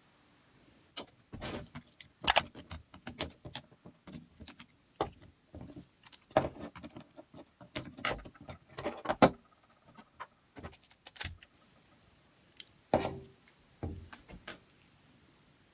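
Small metal parts and tools clicking and clinking irregularly as a cordless drill is handled and worked on by hand.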